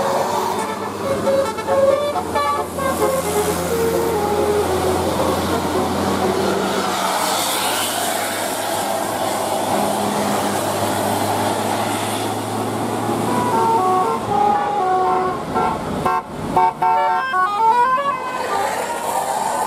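Bus 'telolet' musical horn playing quick tunes of short stepped notes, in the first few seconds and again from about two-thirds in, the last run climbing in pitch. A bus engine runs steadily underneath.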